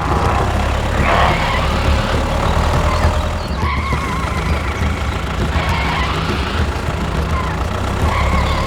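Vehicle engine running with a steady low rumble, and higher wavering squeals coming and going over it.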